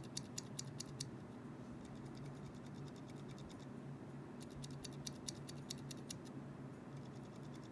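Zilent 62 g silent tactile mechanical keyboard switches, one unlubed and one lubed with Krytox, pressed over and over in quick runs of soft clicks. They are being compared for the scratchiness that lube removes.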